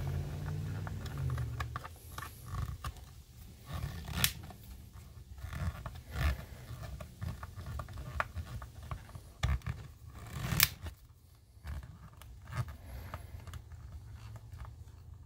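Screwdriver turning T10 Torx screws out of a plastic power-mirror motor mount, with low rumbling handling noise and scraping, broken by a few sharp clicks, the loudest about 4, 6 and 10 seconds in.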